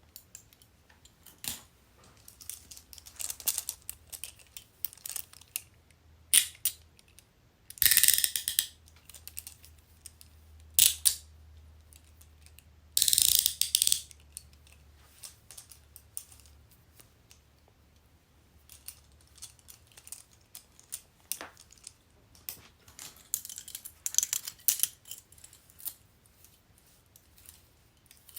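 Metal handcuffs being worked: the cuff arms ratchet through the pawl with runs of sharp clicks and scattered single clicks and rattles. Two louder, quick ratcheting runs, each about a second long, come about a third of the way in and near the middle.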